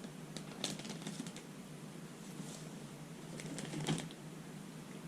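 Faint, scattered small clicks and crackles from someone handling and eating a soft snack, with a short louder cluster just before four seconds in.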